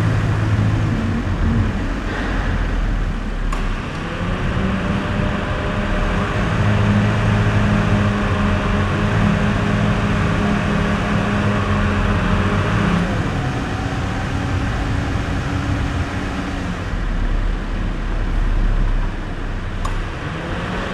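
Car engine and tyre noise while driving. The engine note rises about four seconds in, holds steady, drops away about two-thirds of the way through, and rises again near the end.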